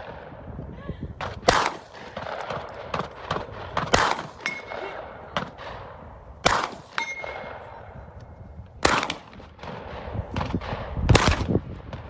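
Semi-automatic competition shotgun, a Benelli M2, fired five times at a steady pace about two and a half seconds apart, with fainter cracks between the shots. A short ringing tone follows two of the shots.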